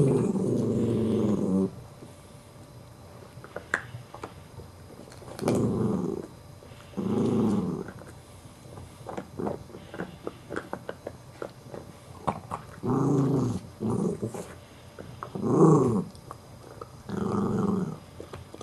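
Small dog growling over a bone it is chewing, a guarding warning at a puppy pushing in: six low growls of a second or so each, with small gnawing clicks from the bone between them.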